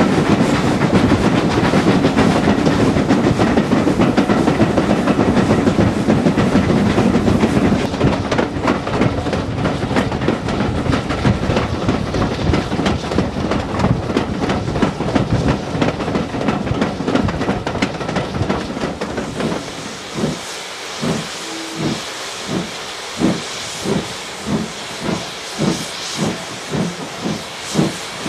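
Steam train heard from on board, running with a steady rumble and wheel rattle. About two-thirds of the way in this gives way to a steam locomotive's exhaust beats over loud hissing steam, the chuffs quickening from under one to about two a second as the engine gathers speed.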